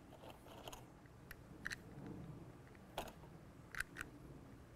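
Faint, light clicks of lead .357 pellets being handled and dropped one at a time into an air rifle's spring-loaded rotary magazine, about half a dozen at uneven intervals over a low background hum.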